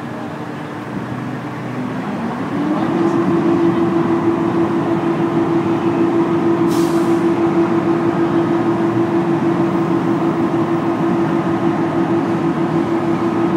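Fire truck's engine speeding up about two seconds in and then holding a steady high hum as it powers the hydraulics retracting the aerial ladder. A short hiss of air comes about halfway.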